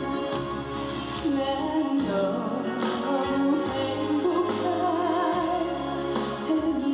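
Live trot music from a band or backing track over a stage PA, with a melody line over a steady bass, likely the instrumental stretch near the end of a song.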